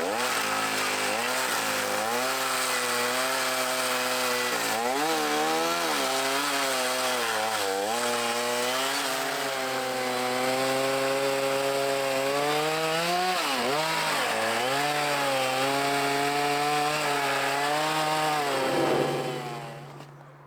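Stihl two-stroke chainsaw cutting slab wood into firewood lengths. The engine's pitch dips and recovers again and again as the chain bites into each cut. Near the end it drops away and goes quiet.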